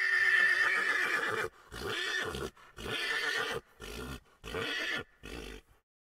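A horse neighing: one long, loud call, followed by about five shorter calls that trail off and die away before the end.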